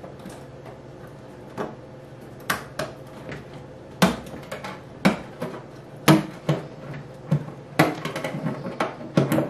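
Irregular sharp plastic clicks and knocks, roughly one every second, the loudest about four and six seconds in, from hands working a balloon clip and the balloon's neck on the neck cylinder of a clear plastic balloon-stuffing dome.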